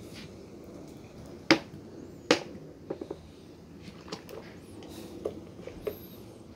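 Thin plastic of an upturned 2-litre Coca-Cola bottle clicking and crackling as it is gripped and caves in while draining. Two sharp loud clicks come about one and a half and two and a quarter seconds in, followed by a few fainter ones.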